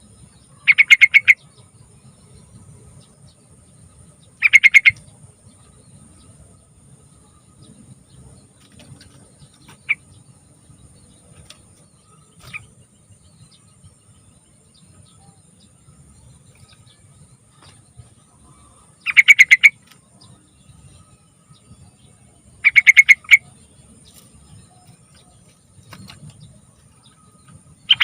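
Yellow-vented bulbul (trucukan) calling in short, rapid chattering phrases of about half a second each. Five phrases come at irregular gaps, two close together near the start and three in the second half, with a couple of faint single notes between them.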